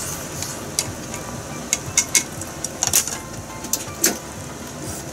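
Pot of fish heads and bamboo shoots simmering in broth on a gas stove, with a steady hiss and irregular small pops and crackles, a few louder pops about two, three and four seconds in.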